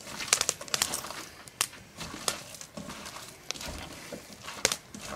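Hands squeezing and kneading raw ground moose meat with chopped onions and peppers in a metal pot, making irregular short squelches and crackles.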